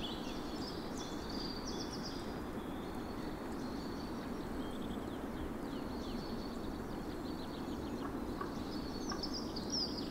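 Small birds chirping and twittering in quick, high sweeps over a steady rushing background noise, the chirps thickest near the start and again near the end.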